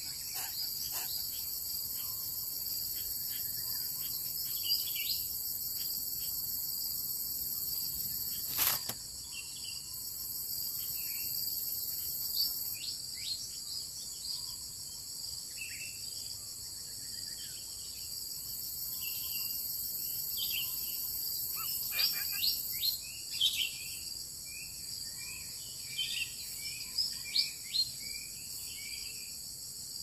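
A steady, high-pitched drone of insects in several layered bands, with scattered short chirps coming more often in the second half. There is one sharp click about nine seconds in.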